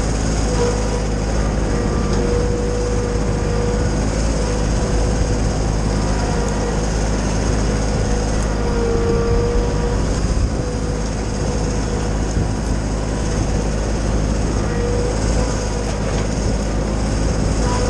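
Kioti subcompact tractor's diesel engine and a Titan wood chipper running steadily together, with a faint whine that comes and goes.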